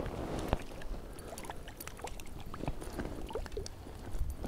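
Shallow creek water splashing and gurgling at the water's edge as a small brook trout is lowered back in by hand and released, with scattered small clicks and drips.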